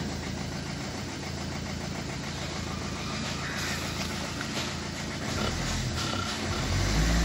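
Maruti Swift Quadrajet 1.3-litre four-cylinder diesel idling steadily at about 1000 rpm, with a freshly replaced timing chain and no chain tick; near the end it revs up and holds at about 2000 rpm.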